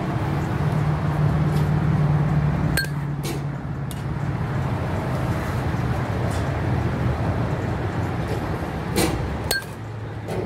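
Sharp metallic clinks of a metal softball bat hitting pitched softballs, twice: about three seconds in and again near the end. Each clink comes with a second knock about half a second away, over a steady low hum.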